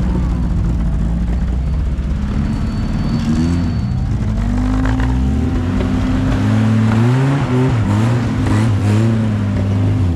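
Engine of a Suzuki-based off-road prototype buggy revving up and down repeatedly under load, holding a steady pitch between each rise and fall.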